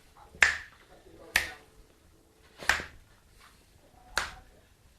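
Fingers snapping four times at uneven intervals, each a single sharp snap.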